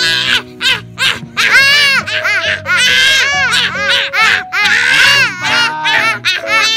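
Two young children laughing loudly in repeated bursts, over background music.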